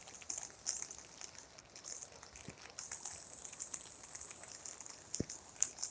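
Rain falling, with many small irregular drop ticks over a soft high hiss.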